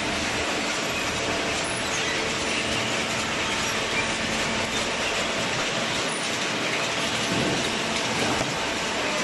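Inclined chain-driven slat conveyor of a horizontal hydraulic cardboard baler running steadily, carrying loose cardboard up into the machine.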